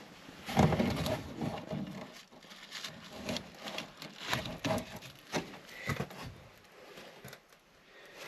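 Irregular knocks, clatters and scrapes of hands handling hard objects, loudest about half a second in and thinning out after about six seconds.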